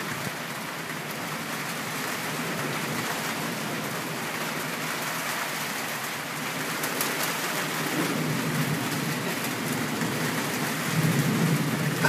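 Steady rain during a thunderstorm, with low rumbles of thunder swelling about two-thirds of the way in and again near the end.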